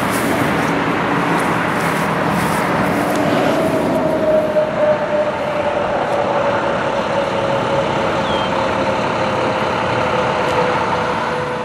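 Steady road traffic noise, with one vehicle's engine tone slowly falling in pitch through the middle.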